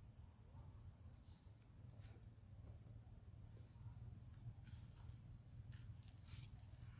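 Near silence with faint, rapid insect trilling, a high pulsing trill in the first second and again for about three seconds from a little after two seconds in, over a low steady hum.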